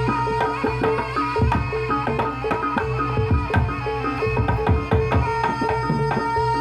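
Javanese jaranan accompaniment music: fast hand-drum strokes with steady pitched metallic tones held over them.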